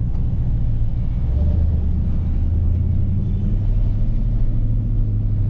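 Jeep Grand Cherokee SRT's V8 engine pulling at low speed, heard from inside the cabin, its low drone rising a little in pitch about a second and a half in as the vehicle gathers speed.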